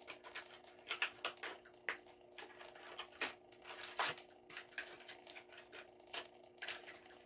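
Hot Wheels blister card being handled and opened: irregular crinkles and clicks of plastic and cardboard, over a faint steady hum.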